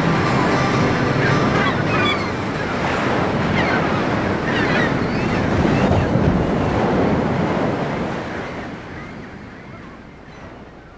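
Sea surf washing steadily, with short bird calls over it, fading out over the last few seconds.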